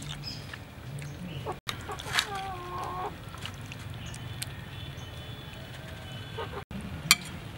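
A hen clucking, with one drawn-out call about two seconds in, over a steady low background. A few sharp clicks sound as well, the loudest near the end.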